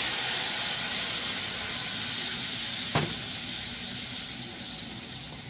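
Cobia fillets sizzling hard in a stainless steel pan of melted butter just after a splash of honey Jack Daniel's whiskey hits the hot pan: a steady steamy hiss that slowly dies down. A single sharp tap sounds about three seconds in.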